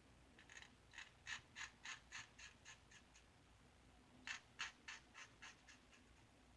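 Single-edge safety razor, a 1901 Gem lather catcher with a Gem blade, scraping through lathered stubble in short quick strokes, about three a second. There is a run of about ten strokes, a pause of about a second, then about seven more.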